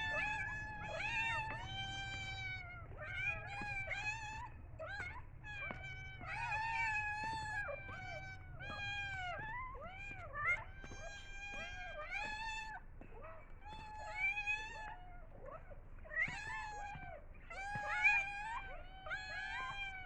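Domestic cat meowing over and over in short, rising-and-falling calls that follow close on one another, the insistent meowing of a cat begging for food at feeding time.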